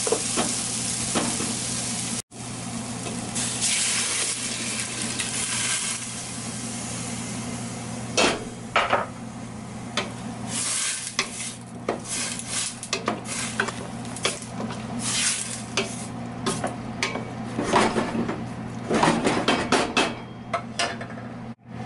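Diced squash and peppers sizzling in olive oil in a stainless steel pot, stirred with a wooden spoon. After about seven seconds the sizzle dies down as red kidney beans go in, and the spoon scrapes and knocks against the pot as they are stirred through.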